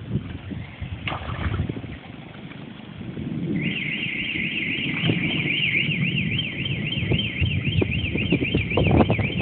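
Electronic alarm siren warbling rapidly up and down in pitch, starting about a third of the way in, over a low rumble.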